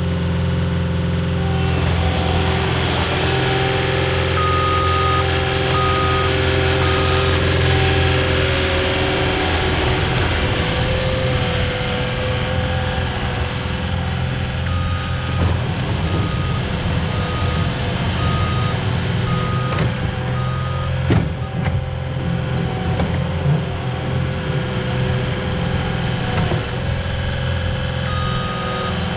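Caterpillar 259 compact track loader's diesel engine running steadily as the machine drives, its backup alarm beeping about once a second in several stretches as it reverses. A single sharp clank is heard about two-thirds of the way through.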